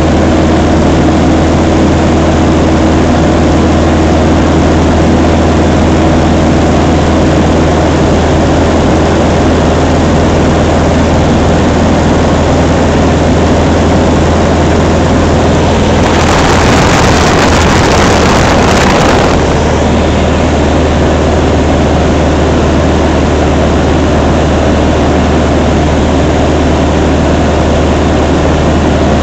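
Luscombe light aircraft's piston engine and propeller droning steadily in cruise, heard from inside the cabin, with a deep, even hum. Just past the middle a louder rush of hiss comes in for about three seconds, then stops.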